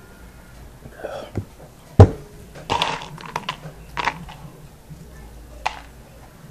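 Close-up handling noise: a sharp knock at the phone about two seconds in, the loudest sound, then several short breathy huffs and rustles.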